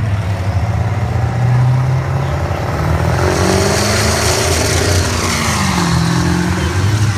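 A diesel pickup truck and a car launching side by side on a drag strip. Engines running steadily on the line, then from about three seconds in both accelerate hard, engine pitch rising, dropping once at a gear change and rising again, with a rushing hiss over the top.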